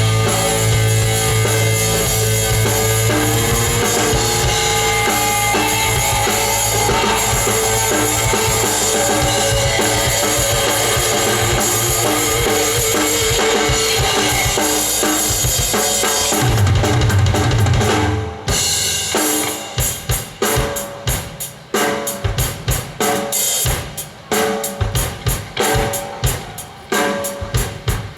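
Live heavy rock band playing at full volume with electric guitar, bass and drum kit. The band cuts off abruptly about two-thirds of the way through. After that the drum kit plays alone, in loose separate hits and fills.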